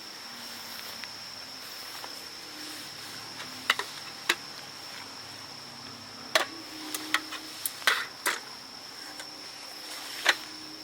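A steady high-pitched insect drone, with sharp clicks or taps scattered through it; the loudest come about four, six, eight and ten seconds in.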